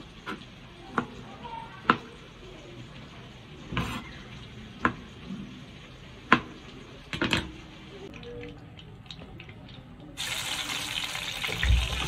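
Chef's knife cutting tomatoes on a cutting board: single sharp taps of the blade hitting the board every second or so. About ten seconds in, a steady hiss of oil sizzling in a hot frying pan takes over.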